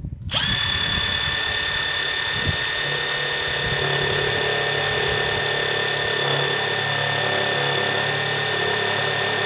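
Hercules 2200 in-lb cordless impact driver running flat out on speed 2 with a steady high whine, starting a moment in. The bit is pressed against steel plate that is too thick for it and makes no headway.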